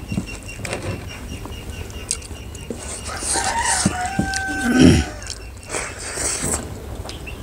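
A rooster crowing once, a call of about two seconds starting near the middle, over a steady low background.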